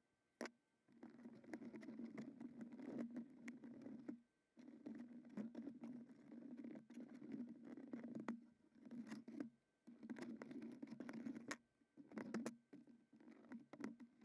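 Double-sided molding tape being laid and pressed along a plastic front lip: scratchy rustling in several stretches, a few seconds at most, with sharp clicks between them.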